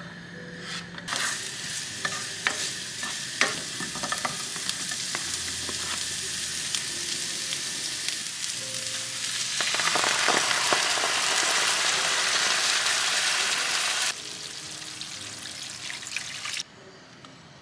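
Sliced ginger and onion sizzling as they are sautéed in hot oil in a pan, with clicks and scrapes of a spatula. The sizzle grows louder about ten seconds in and drops off sharply about fourteen seconds in, as a white milky liquid is poured into the pan.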